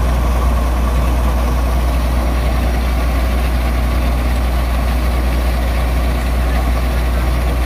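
Hydraulic excavator's diesel engine idling with a steady low drone.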